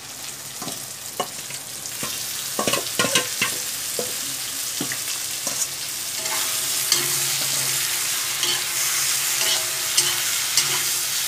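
Marinated chicken pieces sizzling as they fry in a hot black iron kadai, with a metal spatula clacking and scraping against the pan as they are stirred in. The sizzle grows louder about two seconds in and again midway.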